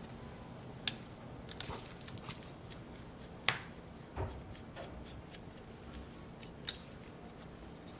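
Faint, scattered clicks and taps of small tools and parts being handled on an opened MacBook Air, with the sharpest click about three and a half seconds in.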